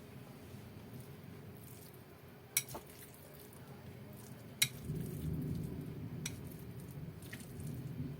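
Minced chicken filling with chopped dried shrimp and mushrooms being mixed in a bowl. Two sharp clinks come a couple of seconds apart, then soft squelching from about five seconds in.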